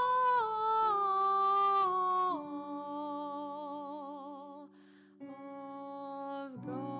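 A voice humming a slow chant melody in long held notes that step down in pitch, over steady sustained lower notes. There is a short breath about five seconds in, and the next note drops again near the end.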